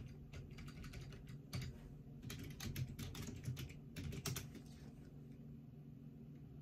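Typing on a computer keyboard: quick bursts of keystrokes, over a steady low hum.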